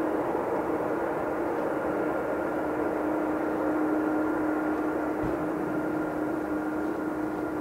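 Twin jet engines of a Boeing 767-300ER running as it rolls out on a snowy runway after landing. The roar is steady with a steady hum in it.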